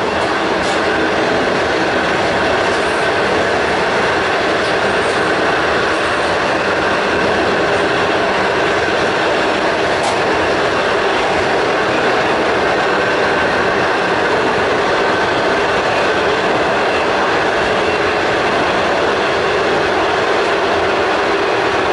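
A passenger train running at speed, heard from inside the carriage: a loud, steady noise of wheels on rails.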